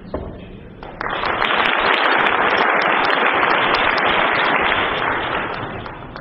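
Audience applauding: dense clapping that starts suddenly about a second in, holds steady, then fades away near the end.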